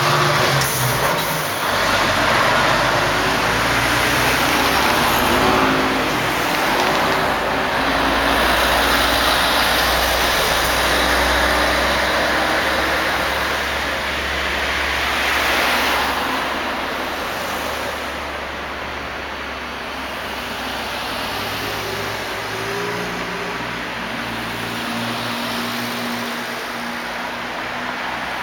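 Street traffic: cars passing on the road, a steady wash of tyre and engine noise with a low rumble, heavier for the first half and easing off after.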